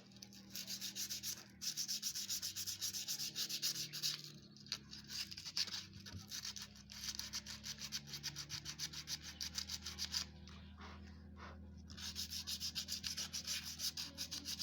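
Motorcycle drum-brake parts being scrubbed clean by hand with quick back-and-forth rubbing strokes, about four a second, pausing briefly about four seconds in and easing off for a couple of seconds past the middle; the cleaning is done to cure a squeaking brake. A low steady hum runs underneath.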